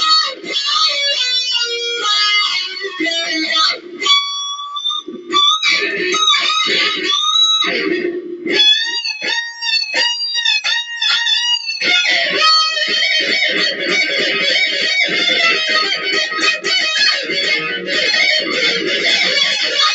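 Electric guitar solo in a fast shred style, with rapid runs of notes and tapped passages. Around the middle come several long notes with wide wavering vibrato, then dense fast playing resumes.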